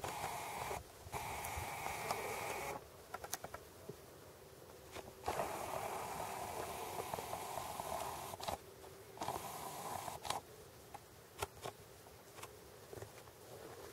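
Camera zoom motor whirring in four stretches of one to three seconds each, starting and stopping abruptly, with scattered faint handling clicks.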